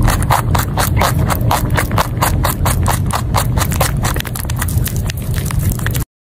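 Rabbit crunching on a raw carrot, a rapid, even series of crisp bites about five a second, stopping abruptly near the end.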